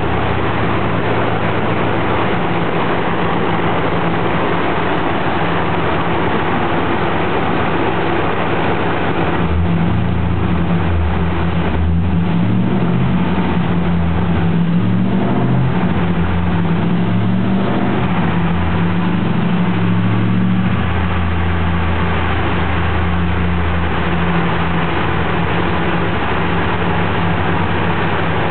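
Pontiac Trans Am's V8 running on a chassis dyno at modest engine speed, over a steady rushing noise. For about ten seconds in the middle the engine note wavers up and down as the revs change, then settles again.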